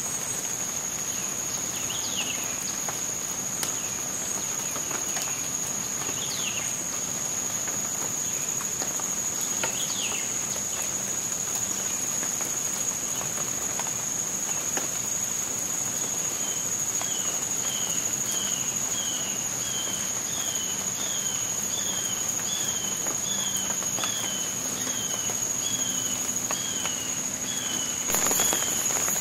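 Swamp insects droning steadily at one high pitch. A few falling whistled bird notes come early, then a run of short, evenly repeated calls, under two a second, through the second half. A rush of noise rises just before the end.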